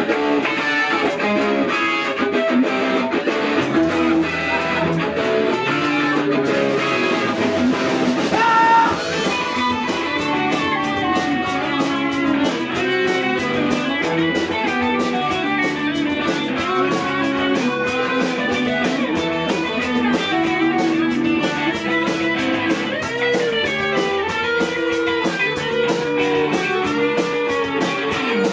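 Live rock band playing an instrumental intro, led by strummed electric guitar chords. Sharp, regular ticks, likely cymbals, come in about nine seconds in and keep time to the end.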